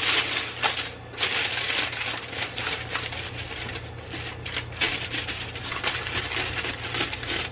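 Aluminium foil crinkling and crackling as hands press and crimp it over the rim of a baking pan: a continuous rustle with louder crackly stretches.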